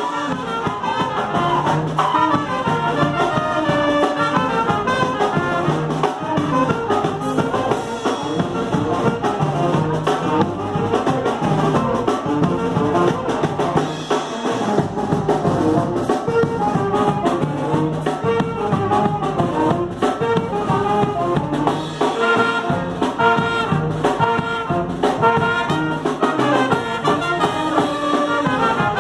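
A live band playing an instrumental tune: trumpets and saxophones carry the melody over keyboard and drum kit.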